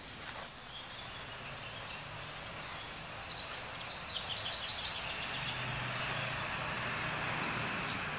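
A passing car's tyre and engine noise swells from about three seconds in and eases near the end. A bird gives a quick high trill about four seconds in.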